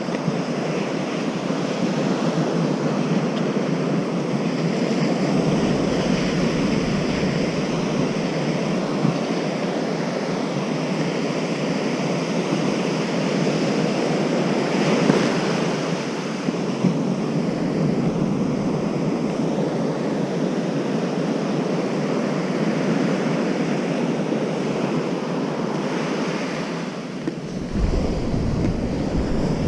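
Surf breaking and washing on a beach, a steady rushing noise with wind on the microphone. Near the end a deeper, low rumble of wind comes in.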